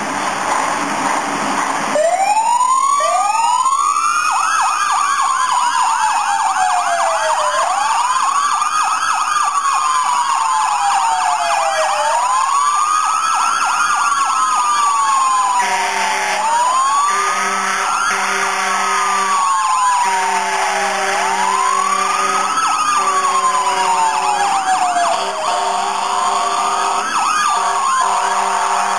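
Fire truck siren winding up about two seconds in, then wailing: each cycle rises quickly and falls slowly, about every four and a half seconds. From about halfway, a fire truck air horn joins in repeated blasts of a few seconds each.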